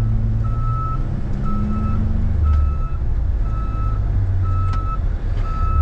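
A vehicle's backup alarm beeping steadily, about once a second, over the low rumble of its running engine, as the vehicle reverses.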